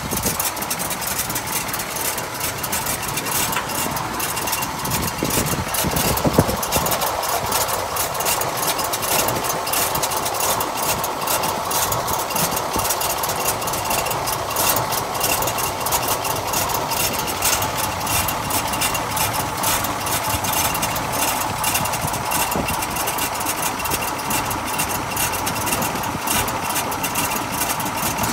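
A 1960 Ford truck's carbureted engine idling steadily, heard close up in the open engine bay. There is one brief thump about six seconds in.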